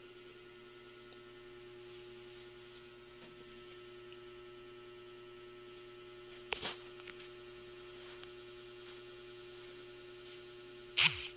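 Steady background hum with a thin, high-pitched whine over it, broken by a brief knock about six and a half seconds in and a louder one near the end.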